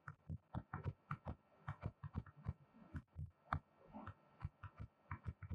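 Stylus tapping and knocking on a touchscreen while handwriting a word: a faint, irregular run of short clicks and dull taps, about four or five a second.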